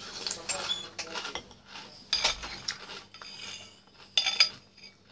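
Metal spoon clinking and scraping against a bowl while scooping chocolate cereal balls in milk. The loudest clinks come about two seconds in and again near the end.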